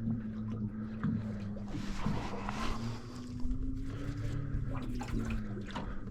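A boat's engine humming steadily at idle, its pitch drifting slightly, with water sloshing against the hull and small knocks and clicks around the boat.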